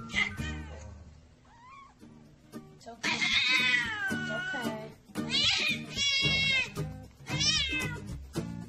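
Mother cat in labour crying out: a brief cry at the start, a long cry falling in pitch about three seconds in, then three shorter cries, over background music.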